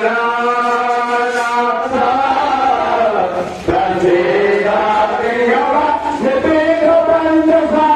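Voices chanting Sanskrit Vedic mantras for a Rudrabhishek puja in a sung, melodic recitation. The chant dips and cuts back in abruptly about three and a half seconds in.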